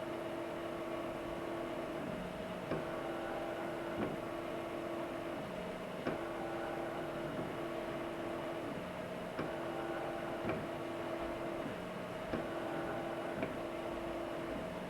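A machine running with a steady hum through a repeating cycle: its drive note switches between two pitches, and a pair of sharp clicks comes about every three seconds.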